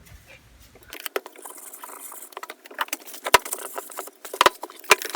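Cleaning and handling on an old Craftsman metal toolbox: a rag rubbing over the metal with many small taps and clicks, and three louder sharp clicks in the second half.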